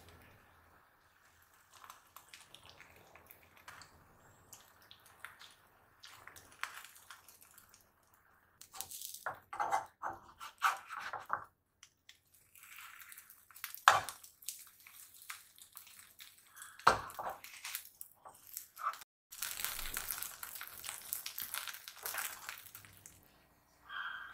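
Kitchen handling sounds while preparing food: irregular crinkling and crunching, two sharp knocks about halfway through, and a steady hiss lasting a few seconds near the end.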